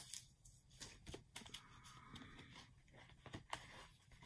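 Near silence with a few faint, scattered rustles and soft taps from a cardboard LP jacket being handled and opened.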